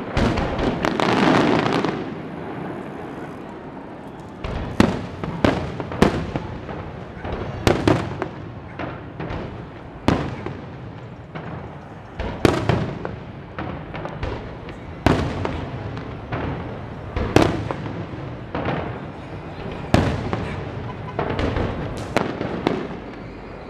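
Aerial fireworks shells bursting in a long irregular barrage of sharp bangs. It starts with a dense, loud stretch, eases into a brief lull about two to four seconds in, then resumes with bangs coming singly and in quick clusters of two or three.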